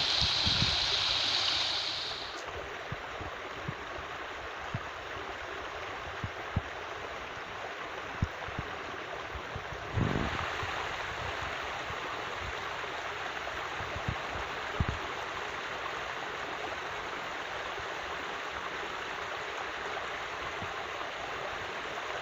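Water of a small river running steadily, a continuous rushing hiss. A stronger, higher hiss over the first two seconds cuts off suddenly, and a few light knocks sound throughout, the heaviest about ten seconds in.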